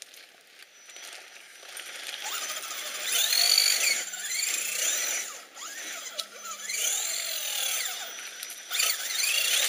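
Electric motor and gear drive of an Axial SCX10 1/10-scale RC crawler whining under throttle, its pitch repeatedly rising and falling as the throttle is worked. It starts after about two seconds.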